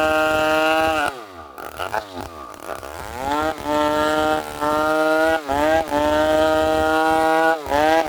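Two-stroke chainsaw running at high revs. About a second in the throttle is let off and the pitch falls to idle, then it is revved back up around three seconds in and held high, with brief dips in pitch several times.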